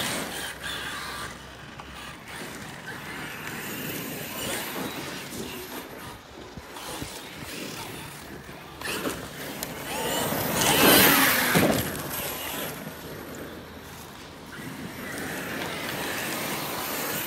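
Arrma Kraton 8S RC monster truck's brushless electric motor whining as it speeds up and slows down over a dirt track, with its tyres scrabbling on the loose dirt. The loudest stretch comes about ten to twelve seconds in, as the truck goes hard on the throttle.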